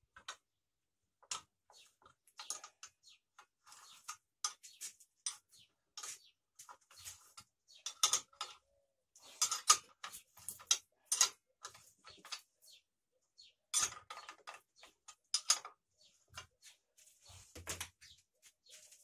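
Spanner working the mounting nuts on a Taiga-214 chainsaw while a cut-off disc attachment is bolted on: irregular metallic clicks and clinks, with a few dull knocks.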